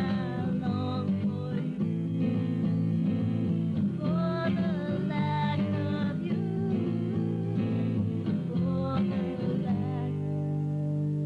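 Rock song: a lead singer's voice in several phrases over guitar and a full band with a steady bass line.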